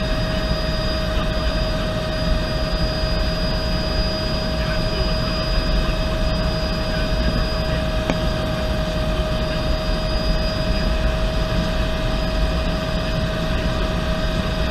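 Cabin noise of a 1980 Bell 206B3 JetRanger helicopter in steady flight, heard from inside the cabin. A constant high turbine whine from its Allison 250 turboshaft sits over a dense low rumble from the rotor and airflow.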